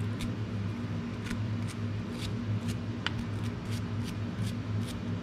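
Short scraping strokes on a metal bolt's threads, roughly two a second at an uneven pace: old thread locker and silicone gasket eliminator being cleaned off. A steady low hum runs underneath.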